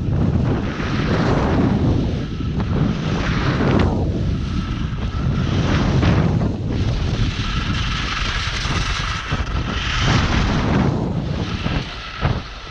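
Wind roaring over the camera's microphone during a fast ski run, with the skis hissing and scraping on the snow. The scraping swells and fades every couple of seconds as the skier turns.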